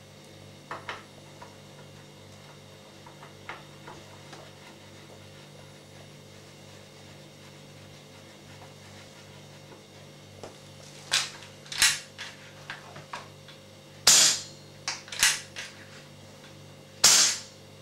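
Air rifle fitted with a large 10½-inch silencer, fired twice about three seconds apart; each shot is a sharp crack with a short ringing tail. Several smaller mechanical clicks of the rifle's action come before and between the shots.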